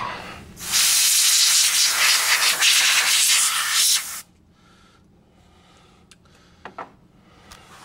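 A loud, steady hiss lasting about three and a half seconds that cuts off sharply, followed by a few faint clicks.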